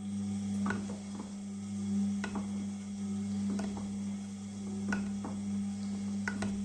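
Beko 6 kg washing machine running a wash cycle: a steady motor hum with a short knock about every second and a half as the drum turns the load.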